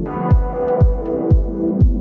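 Electronic background music with a steady kick drum, about two beats a second, under held synth chords.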